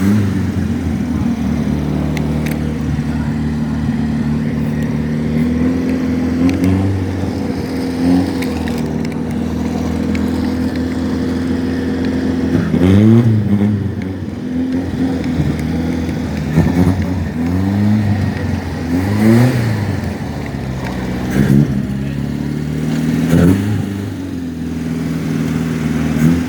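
A car engine idling steadily, revved in short blips about five times in the second half, each rev rising in pitch and falling back to idle.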